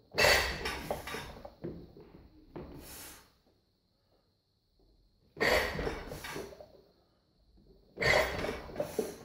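A weightlifter's loud, forceful breaths while holding a loaded barbell at the shoulders between lifts. There are several short, sharp blasts of breath a few seconds apart, with quiet in between.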